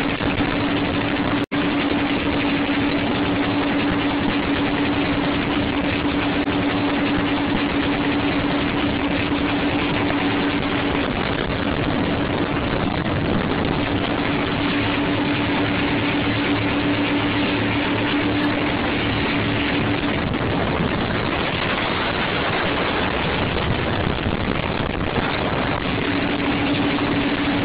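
Twin Mercruiser 350 V8 inboard engines of a 1977 Wellcraft Nova 250 running steadily at speed, heard from on board under heavy wind and rushing water. The engines' steady hum fades for several seconds near the end, then comes back.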